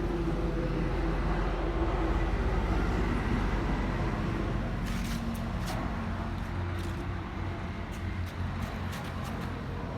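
Motorbike engine running steadily, its pitch dropping slightly about four seconds in, with several sharp clicks in the second half.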